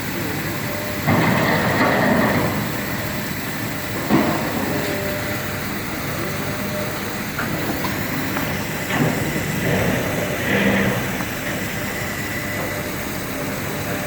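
Demolition machinery tearing down a building: a heavy engine running steadily, with crashing and clattering of debris and metal in bursts, a sharp bang about four seconds in, and more crashes around nine to eleven seconds.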